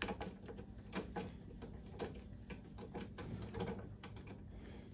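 Faint, irregular light clicks and taps of metal parts being handled as a control lever is fitted and bolted onto a mini excavator's console.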